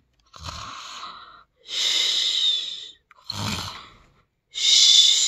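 A person's voice imitating loud cartoon snoring: twice, a rough, low snore followed by a long hissing breath out.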